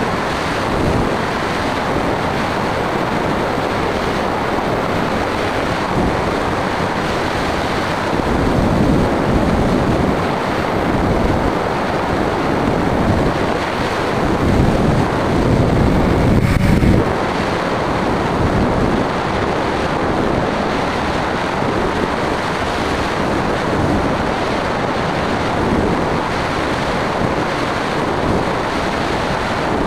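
Wind rushing over the microphone of a camera mounted on a small aircraft in flight, a steady loud rush that swells for several seconds in the middle.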